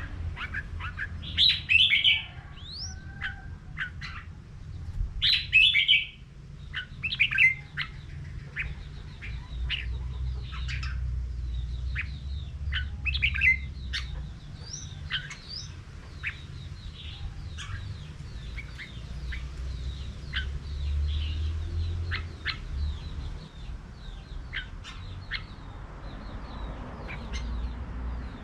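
Red-whiskered bulbuls singing, with short whistled phrases and chirps throughout. The loudest phrases come in the first half. A steady low rumble runs underneath.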